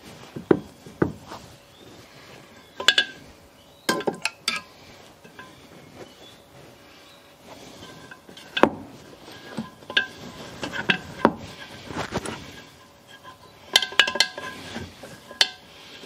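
Irregular metallic clinks and knocks, some in quick clusters, as small-engine parts and tools are handled and oiled on a workbench during reassembly.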